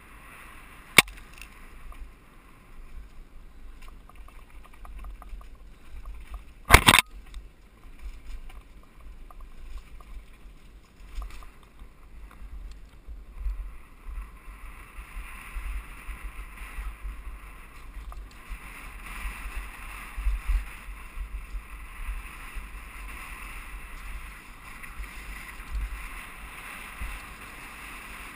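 Ride noise from a downhill mountain bike heard on a helmet camera: the bike rattling over stone paths, steps and cobbles, with wind rumbling on the microphone. A sharp knock about a second in and a heavier thud, the loudest sound, about seven seconds in; from about halfway a steadier hiss of rushing air and tyre noise.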